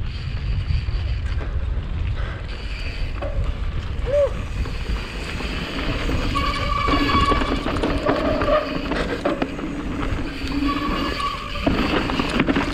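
Mountain bike riding down a dirt trail: a steady low rumble of wind on the microphone and tyres on the ground. A thin steady whine comes and goes through the second half.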